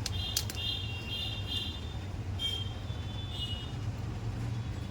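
Steady low rumble of road traffic. Over it come a couple of sharp clicks about half a second in, and short high-pitched ringing tones in the first two seconds and again twice around the middle.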